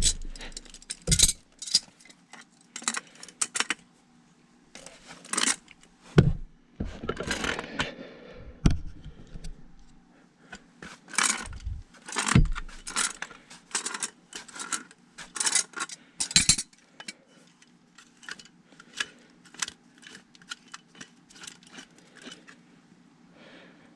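Metal clinks, clanks and scrapes of hand tools working a furnace gas valve and its pipe fittings loose: many irregular sharp knocks, thinning to lighter clicks in the last few seconds.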